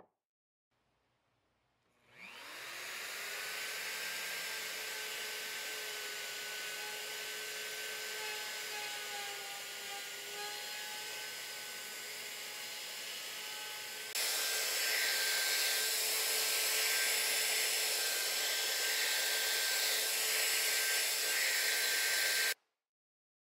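Handheld plunge router spinning up with a rising whine, then running steadily as it cuts slots in hard maple through a routing template. About two-thirds of the way in the sound steps louder, and near the end it cuts off suddenly.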